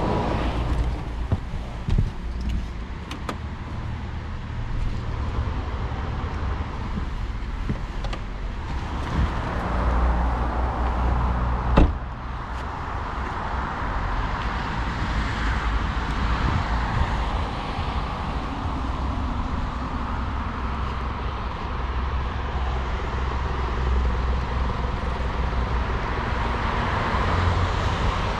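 Mercedes-Benz C 220 d's 2.0-litre four-cylinder diesel and its tyres on the road while driving: a steady low rumble with a few clicks and one sharp knock about twelve seconds in. The road noise grows through the second half.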